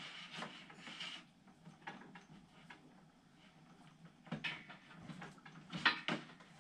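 Hands routing cables behind a desk: rubbing and light scattered knocks and clicks, with sharper knocks about four and a half and six seconds in.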